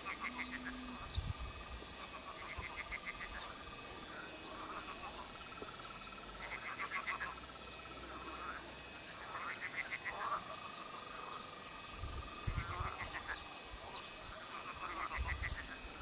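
Frogs croaking: short pulsed trills about a second long, repeating every couple of seconds, with faint bird chirps above them and a few low bumps.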